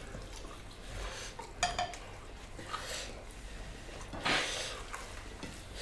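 Light clinks and scrapes of a spoon against ceramic plates and bowls, a few brief strikes with one short ring about a second and a half in.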